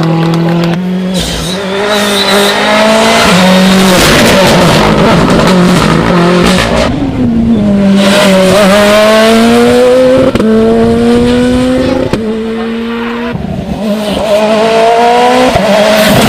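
Rally car engine at full throttle, its pitch climbing steadily and dropping sharply several times as the driver shifts up through the gears.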